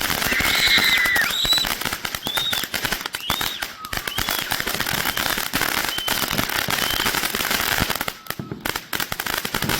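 Consumer firework fountain, a Jalapeno Popper, going off with dense, rapid crackling and popping, with brief high whistles rising and falling over it.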